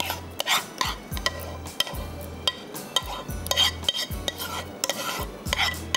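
Spoon stirring and scraping custard in a bowl, in short, irregular strokes about two or three a second.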